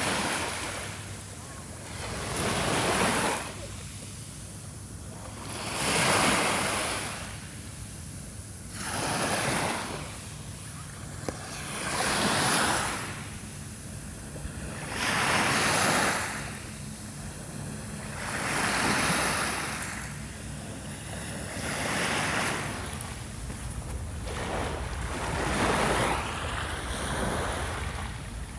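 Gentle sea waves breaking and washing up on the shore, one surge of surf about every three seconds in a steady rhythm, with a low rumble of wind underneath.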